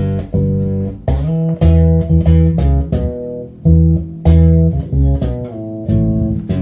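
Homemade 5-string electric bass played through a Behringer bass amp's distortion channel: a fast run of picked notes, each note gritty with added overtones.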